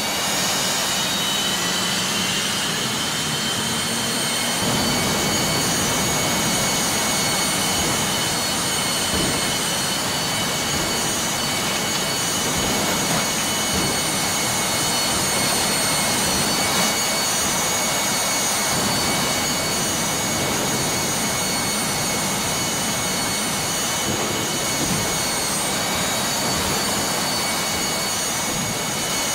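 Jet engine running under thrust: a loud, steady rushing blast with a high turbine whine over it. The low rumble grows heavier about four to five seconds in as the throttle is opened up.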